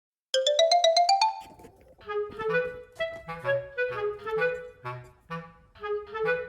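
Light background music: a quick rising run of about ten short notes, then a bouncy, staccato tune over low bass notes.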